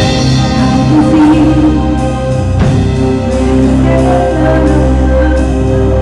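A live rock band playing loud music, with drum hits over steady sustained low notes.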